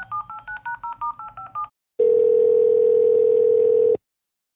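Touch-tone telephone keypad dialing: a quick run of two-note beeps, about six a second, for nearly two seconds. After a short pause, a steady ringing tone on the line sounds for two seconds, stops, and starts again near the end.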